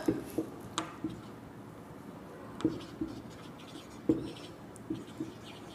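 Marker pen writing on a whiteboard: faint scratching of the felt tip across the board with a few light taps.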